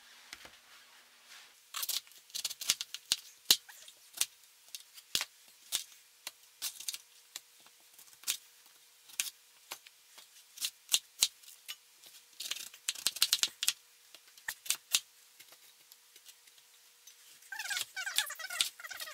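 A kitchen knife cutting through a red cabbage and knocking on a plastic cutting board, in irregular sharp knocks. There is a quick flurry of cuts about two-thirds of the way through.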